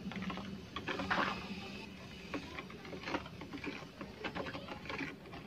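A steel spoon stirring thin tamarind water in a plastic bowl, with faint, irregular clicks and scrapes of the spoon against the bowl.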